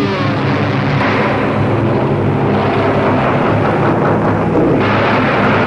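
Loud, steady engine drone over a heavy rumble, typical of aircraft engines, growing brighter and harsher near the end.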